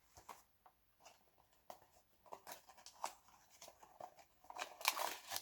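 Hands handling microphone packaging: scattered small clicks and rustles, with a louder rustle near the end.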